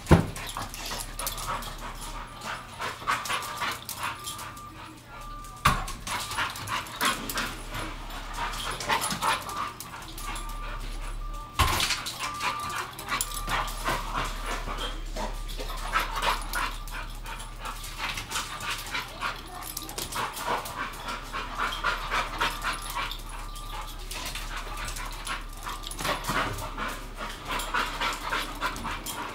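Pit bull whimpering and yipping in excitement while chasing a laser dot, over a rapid clicking and scrabbling that runs throughout. A few sharp thumps stand out: one at the very start, one about six seconds in and one about twelve seconds in.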